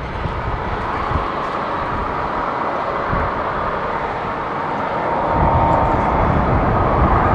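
Airbus A330-300 with Rolls-Royce Trent 700 turbofans on final approach: a steady jet roar with a thin fan whine. A deeper rumble comes in about five seconds in and the sound grows louder as the airliner nears.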